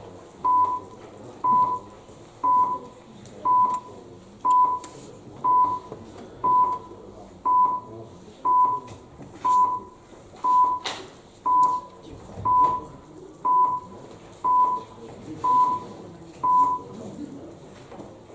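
Electronic voting system's countdown beeping while a vote is open: seventeen short, steady, mid-pitched beeps, one a second, that stop when the voting time runs out.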